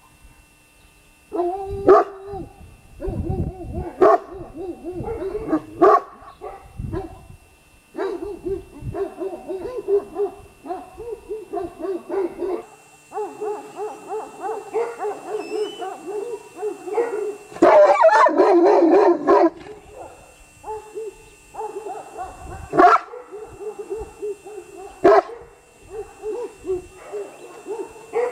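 Caucasian Shepherd dog vocalising in long, wavering whining howls, broken by several sharp barks, with a louder stretch about two-thirds of the way through.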